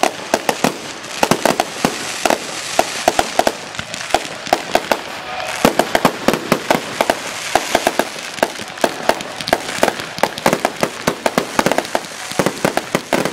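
Fireworks display: a rapid, irregular string of sharp bangs and pops, several a second, over a continuous hiss from shots streaming out in a sustained barrage.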